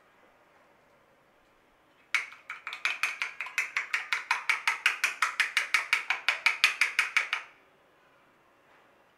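A metal spoon beating egg in a glass bowl, clicking against the glass rapidly and evenly at about six strokes a second. It starts about two seconds in and runs for some five seconds.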